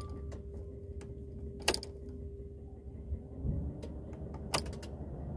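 Several sharp clicks over a low steady hum, with a faint steady tone that stops about three and a half seconds in; the loudest click comes a little under two seconds in.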